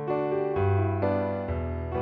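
Background music played on a piano-like keyboard, with the chords changing about every half second over low bass notes.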